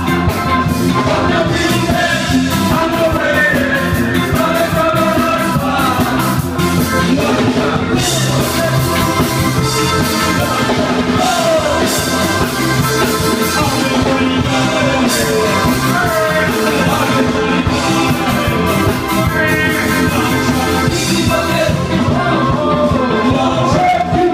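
Live band playing loudly, with a male lead singer singing into a handheld microphone over drums and instruments.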